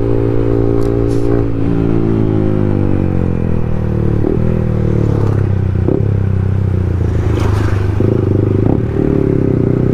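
Yamaha motorcycle engine running under way, its note easing down over a couple of seconds and rising again about eight seconds in, with a few light clicks.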